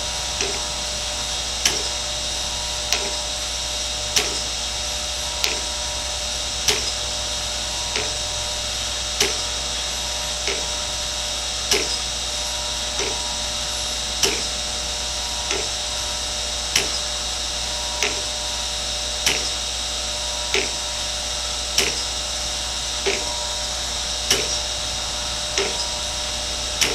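Chevalier 2A618 hydraulic surface grinder running through a spark-out pass on a steel part: a steady motor hum with several fixed tones, and a sharp knock about every second and a quarter.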